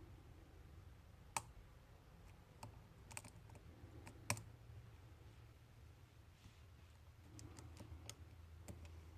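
Faint, scattered metallic clicks of a homemade swoop-style pick working the pin stack inside a challenge lock, with the loudest tick about four seconds in and a small cluster near the end.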